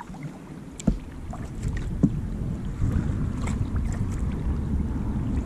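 Wind rumbling on the microphone as a folding kayak moves over calm water, with a few small splashes and knocks. The rumble grows louder after about a second.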